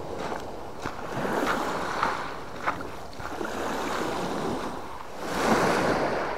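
Small waves washing up and draining back on a pebble beach, swelling and easing, with the largest wash about five seconds in. Crunching footsteps on the shingle come as a few sharp clicks.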